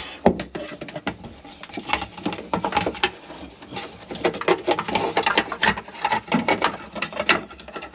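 A new bilge pump and its hose fitting being worked into position by hand: a fast, irregular run of plastic clicks, knocks and scrapes.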